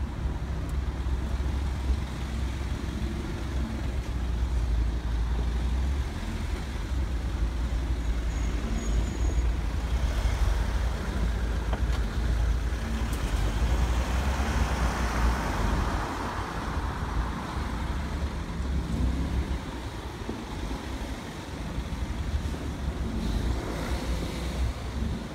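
Road traffic noise: a steady low rumble of running cars, swelling and fading in the middle as traffic goes by.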